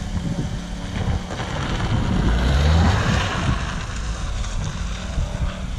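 A car's engine revving up and falling back as the car tries to drift, loudest about three seconds in, with wind buffeting the microphone.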